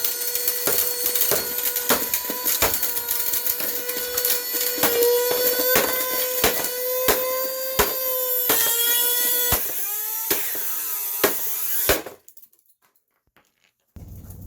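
Canister vacuum cleaner motor running with a steady high whine, under a string of sharp knocks roughly every half second. Near the end the whine wavers and sags, then cuts off abruptly.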